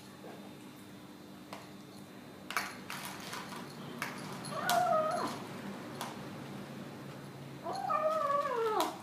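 Domestic cat grumbling while eating: two drawn-out moaning meows, the second longer and sliding down in pitch at the end, with a few sharp clicks between them.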